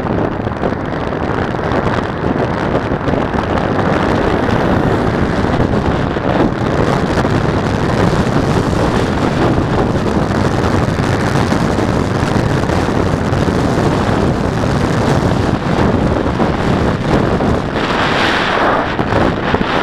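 Wind rushing over an action camera's microphone while riding a bicycle, a steady loud buffeting. It grows briefly louder and brighter near the end.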